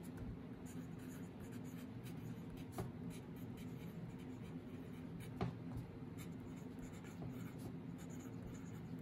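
Handwriting on paper on a clipboard: the writing tip scratching faintly and steadily across the sheet, with two sharper ticks about three seconds in and about five and a half seconds in.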